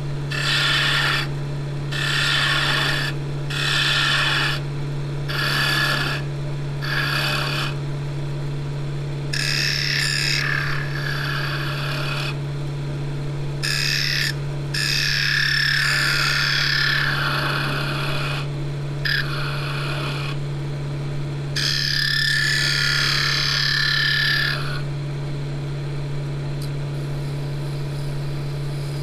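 Wood lathe motor humming steadily while a turning tool cuts the spinning ash blank in repeated passes: about six short cuts in the first seven seconds, then several longer cuts, then only the motor hum near the end. The cuts are reducing the diameter of the eccentric stand.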